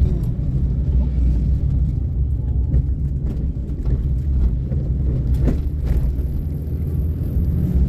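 Suzuki Karimun kei car driving, heard from inside the cabin: a steady low rumble of engine and road noise.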